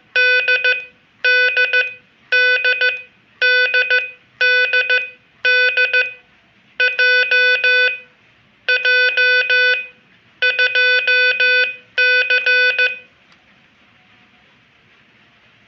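Morse code (CW) tone at about 500 Hz, keyed at about 14 words per minute in short groups of dots and dashes. It stops near the end, leaving faint hiss.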